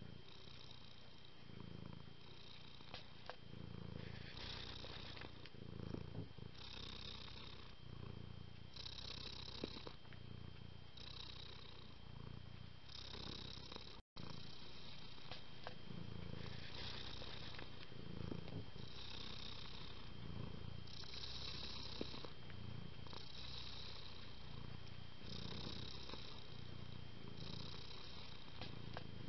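Domestic cat purring continuously, alternating about every two seconds between a low rumble and a breathier, higher phase. The sound drops out briefly about halfway through, and a faint steady high tone runs underneath.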